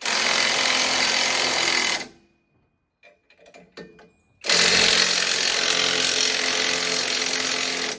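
Impact wrench hammering in two long runs, about two seconds and then about three and a half seconds, with a few light clicks and knocks in the pause between.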